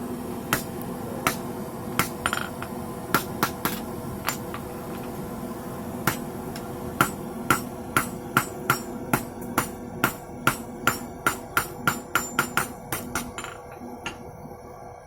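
Hand hammer striking hot rebar on an anvil during forging: a few scattered blows, then a steady run of about two to three ringing blows a second from about seven seconds in, stopping shortly before the end.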